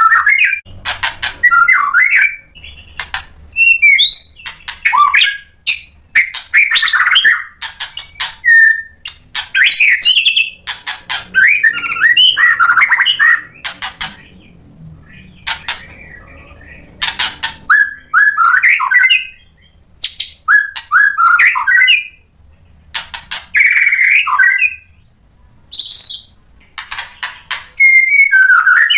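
White-rumped shama singing loudly in bursts of fast, varied phrases: whistles, trills and sharp clicking notes, each burst a second or two long with short pauses between. There is a brief lull in the middle and a high thin whistle near the end.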